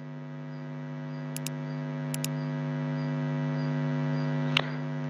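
Steady electrical hum on the narration microphone, made of several evenly spaced tones and slowly growing louder. Computer mouse clicks break in twice as quick press-and-release pairs early on, about a second and a half and two seconds in, with one sharper click near the end.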